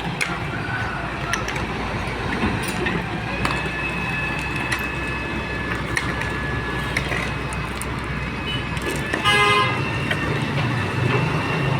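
Heavy-duty excavator's diesel engine running steadily amid street traffic, with a short vehicle horn toot about nine seconds in.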